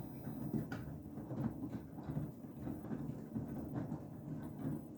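Beko WTK104121W washing machine's drum turning during the main wash, wet towels and water sloshing and flopping inside it in an uneven churn with small knocks.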